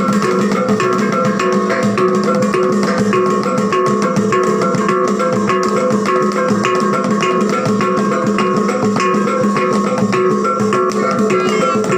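Music with plucked guitar and a steady beat of percussion.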